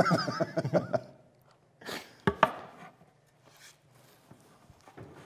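A few short wooden knocks as wooden floor sample boards are handled and set down, the clearest ones about two seconds in, with fainter taps later.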